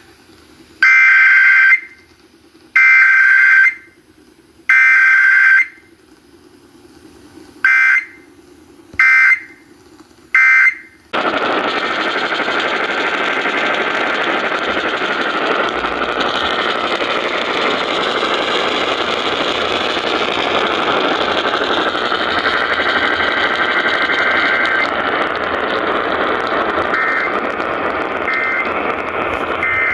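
Emergency Alert System weekly test: three loud bursts of SAME header data, each about a second long, then three short end-of-message bursts. From about eleven seconds in, a steady hiss of static takes over, with fainter data tones audible under it and a few short bursts near the end.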